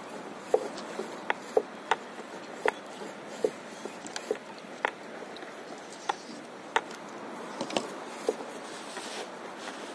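Small water plips and slaps against the paddleboard's hull, irregular, one or two a second, over a steady hiss of wind and sea.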